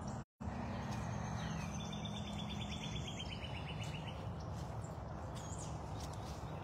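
Outdoor ambience with a steady low hum, in which a bird gives a rapid, evenly pulsed trill lasting about two seconds, followed by a few faint chirps. The sound cuts out for a moment near the start.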